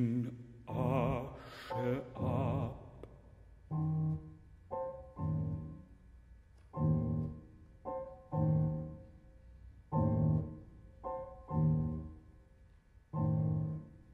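A baritone voice holds a sung phrase with wide vibrato. Then the grand piano plays alone: a slow repeated figure of single chords and pairs of chords, each left to ring out.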